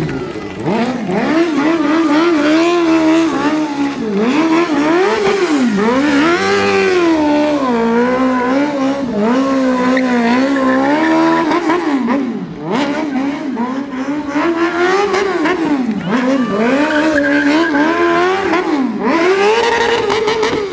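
Sportbike engine revving hard, its pitch rising and falling again and again, while the spinning rear tyre screeches on asphalt during a burnout. There is a brief dip in the noise about halfway through.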